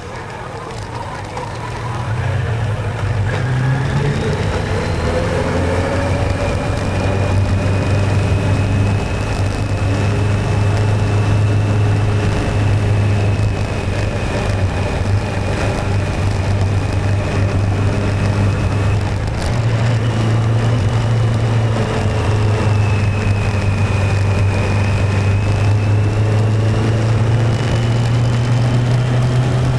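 Motorcycle engine running under way, picking up speed about two seconds in and then holding a steady cruise, with a thin high whine above the engine note.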